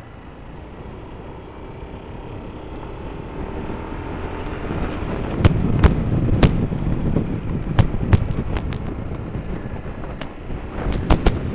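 Wind and road noise on a moving bicycle's on-board microphone, getting louder about halfway through, with a run of irregular sharp clicks and knocks in the second half.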